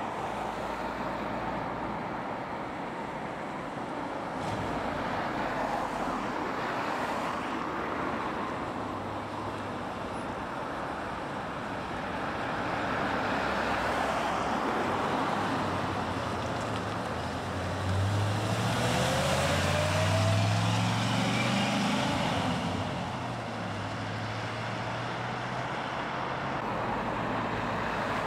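Classic cars and pickups driving past on a road, engines and tyres running. About 18 seconds in, one engine accelerates hard, its pitch rising twice as it pulls up through the gears, the loudest part, before it fades.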